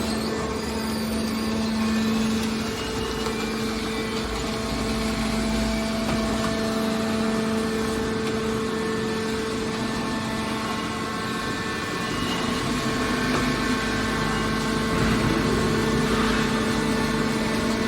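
Hydraulic metal scrap baler running: a steady machine hum with a constant low tone.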